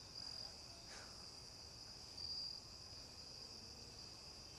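Faint, steady high-pitched trill of crickets, swelling a little louder a few times.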